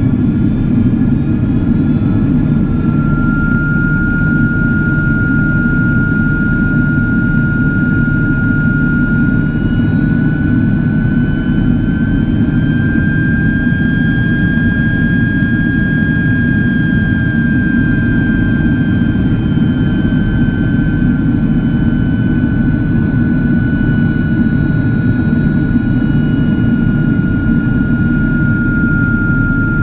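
Cabin noise inside a Boeing 767-400ER in flight: a loud, steady deep rush of airflow and engines with a high turbofan whine over it. The whine climbs slightly in pitch a little before halfway and eases back down later, a change in engine thrust.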